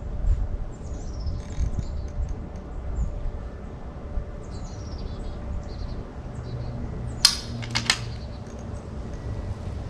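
Small birds chirping, then two sharp cracks a little over half a second apart about seven seconds in, the first the louder: .22 rimfire rifle fire during an NRL22 stage.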